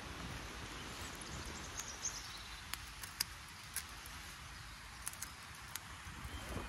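Wind buffeting the microphone as a steady low rumble, with a scattered handful of sharp clicks and a few faint bird chirps.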